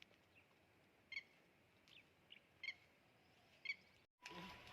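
Faint bird calls: a short, high call repeated four times, about every second and a half, with softer chirps between. The sound breaks off near the end.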